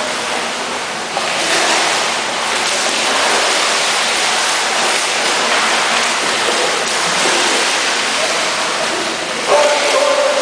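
Continuous splashing and churning water from swimmers' overarm front-crawl strokes in a pool, heard close to the water's surface.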